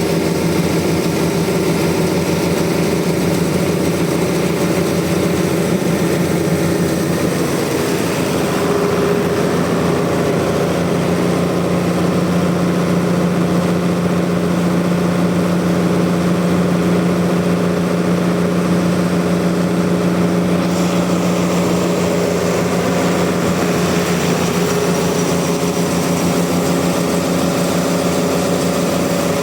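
Sawmill engine running steadily, its pitch shifting slightly a few times.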